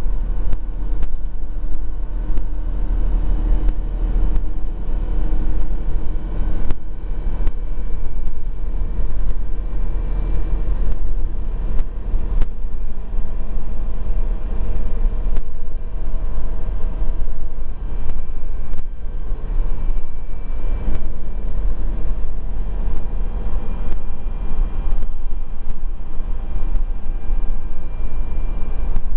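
Volvo B12BLE bus heard from inside the passenger cabin while driving: steady engine and road noise with a deep rumble, the engine note rising and falling as it runs, and a few brief knocks and rattles.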